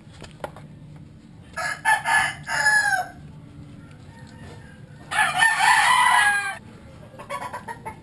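A rooster crowing twice, each crow about a second and a half long and falling in pitch at the end.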